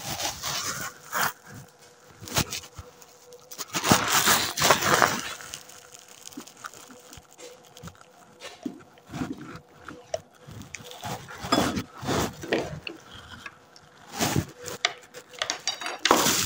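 Handling noises while a glass pipette is filled from a glass beaker: irregular clicks and knocks of glassware, with a few longer bursts of rustling and scraping.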